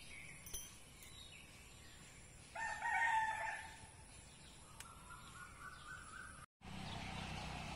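A rooster crowing: one crow about two and a half seconds in, followed by a fainter, drawn-out call a couple of seconds later.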